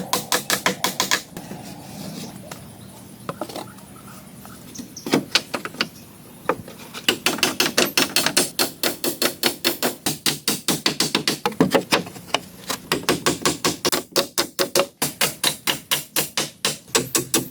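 Rapid hammering, about five sharp strikes a second, in long runs. It breaks off about a second in, with only a couple of single blows over the next few seconds, then starts again and runs on with short pauses.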